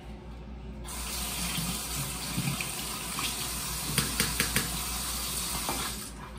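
Bathroom sink faucet turned on about a second in, water running steadily into the basin, then shut off near the end. A few sharp clicks about four seconds in.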